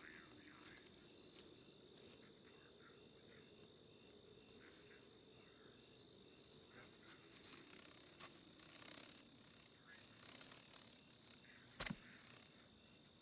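Faint night ambience of crickets chirping in a steady high drone, with scattered soft rustles. A single sharp click stands out near the end.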